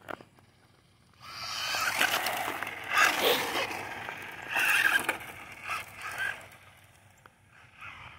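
Remote-control model car of a 1970 Dodge Charger driving past, its wheels and motor a rushing noise. The noise comes in about a second in, swells twice and fades away.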